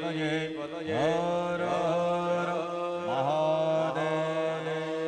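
A single voice chanting mantras in long held notes, sliding up into each new phrase about a second in and again about three seconds in.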